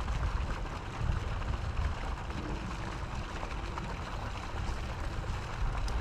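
Outdoor wind rumbling and buffeting on the microphone over a steady wash of background noise.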